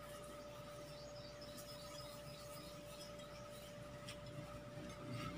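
Faint gritty rubbing and light scratching as salt is rubbed by hand over the skin of a whole milkfish, over a steady faint hum.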